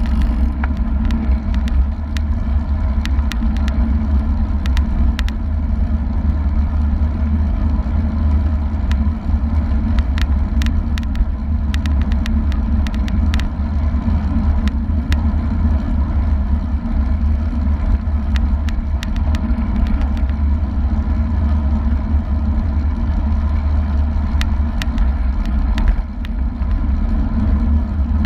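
Wind rushing over a bike-mounted GoPro's microphone at about 36 km/h, a steady low rumble with road and tyre noise beneath it, and scattered light clicks.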